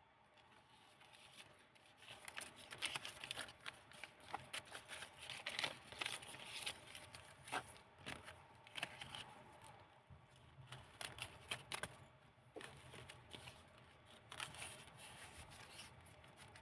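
Paper pages of a handmade junk-journal storybook, made from old book pages, being turned and handled: soft rustling and crinkling with many small crackles and taps, busier from about two seconds in.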